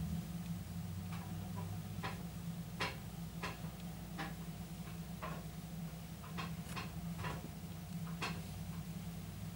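Wheeled tractor's diesel engine running steadily at idle, with irregular sharp clicks and ticks over it, about one or two a second.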